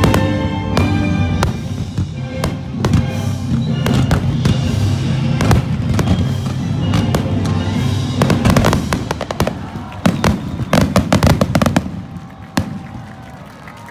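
Fireworks finale: shells bursting and crackling over orchestral music from loudspeakers, building to a dense barrage of rapid reports about eight to twelve seconds in. One last bang follows, and the music fades out.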